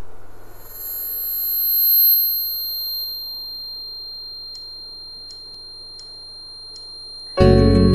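Intro of a karaoke backing track: steady high-pitched tones over a faint low hum, with soft ticks about every 0.7 s in the second half. A loud keyboard-led band comes in near the end.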